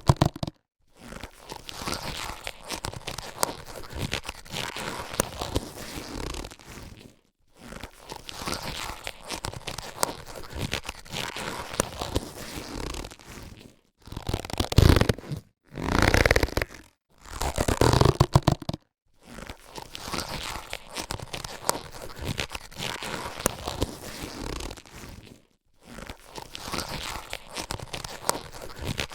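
Latex surgical gloves being handled: crinkly, crackling rubber rustles and snaps in stretches of a few seconds, each broken off by a short silence, loudest in two bursts past the middle.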